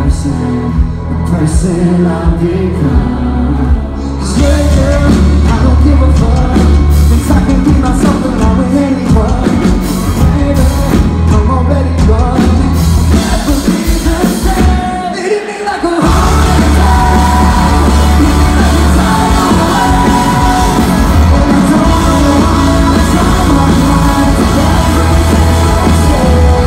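Live rock band playing loud, with singing. A thinner opening gives way to the full band with heavy bass and drums about four seconds in. The low end drops out briefly past the middle before the whole band comes crashing back in.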